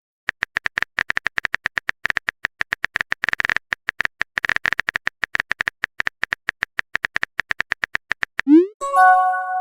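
Phone keyboard typing sound effect: a rapid run of short ticks lasting about eight seconds. Near the end comes a quick rising swoosh of a text message being sent, followed by a short multi-tone notification chime.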